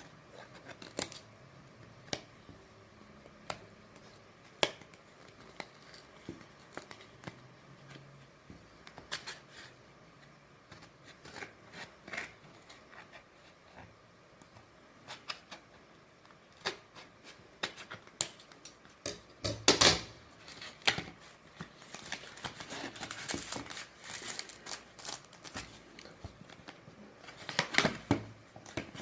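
Screen guard packaging being opened and handled by hand: scattered clicks and taps, with louder bursts of rustling and handling about two-thirds of the way through and again near the end.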